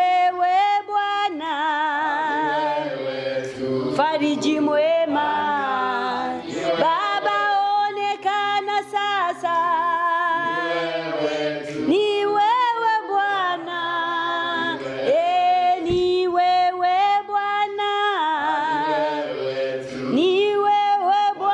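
A woman singing a worship song without instruments, holding long notes with vibrato.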